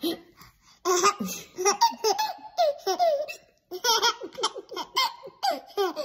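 Baby laughing in rapid bursts of giggles, in two long runs with a brief pause between them.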